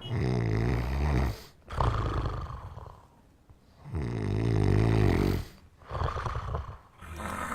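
A person snoring loudly: twice, a deep buzzing snore is followed by a breathy exhale, about four seconds per breath, with a third breath starting near the end.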